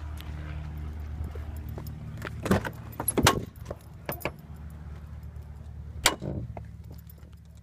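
Clicks and knocks of a Jeep Grand Cherokee's driver door being unlatched and opened, a cluster about two and a half to three and a half seconds in and one more sharp knock about six seconds in, over a steady low hum that fades toward the end.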